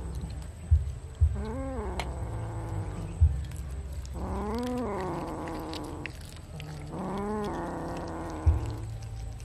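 A cat meowing three times, each call rising then falling in pitch, the middle one longest. There are a few brief low thumps in between.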